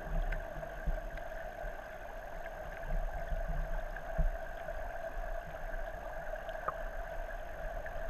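Stream water flowing, heard through a submerged camera: a steady, muffled rush with a low rumble and a few scattered small clicks.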